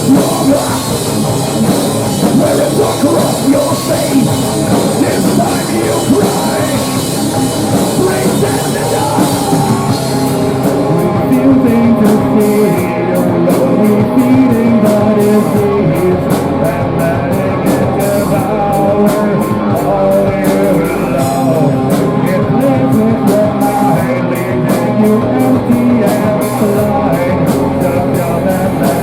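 Live rock band playing a loud, steady song on drum kit and guitars.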